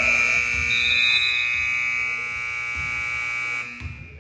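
Gym scoreboard buzzer sounding as the clock runs out, marking the end of the first period. It is one loud, steady electronic tone that holds for about three and a half seconds and then dies away, with a briefer, higher tone over it about a second in.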